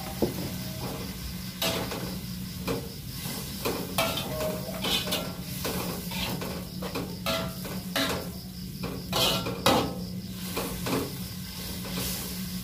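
Metal spatula scraping and knocking against a wok in quick irregular strokes as mushrooms are stir-fried, over a faint sizzle of frying.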